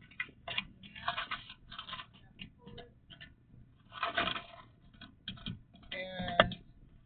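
Irregular rustling, crackling and clicking, like close handling or movement, with a short tonal sound about six seconds in.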